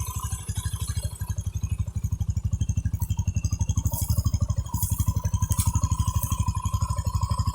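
Motorcycle engine running steadily at low revs, an even, fast train of exhaust pulses.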